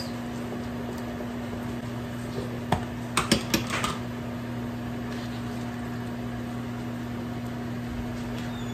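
Steady low hum of a running kitchen appliance, with a quick run of sharp clicks and knocks about three seconds in.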